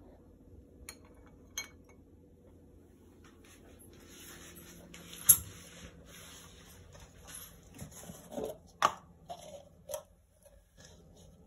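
Soup spoon clinking and scraping against a ceramic bowl while cream is stirred into soup: scattered light clinks with soft swishing between them, the sharpest clink about five seconds in.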